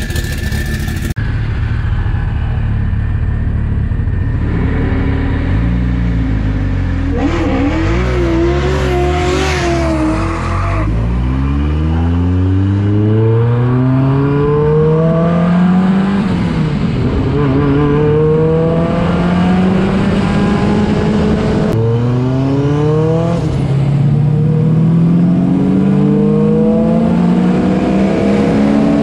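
Big-turbo Mitsubishi Lancer Evolution IX engine under hard acceleration through the gears. After some low, steady running, the pitch climbs from about a third of the way in, drops at an upshift about halfway through, climbs again and drops at another upshift a few seconds later, then keeps rising.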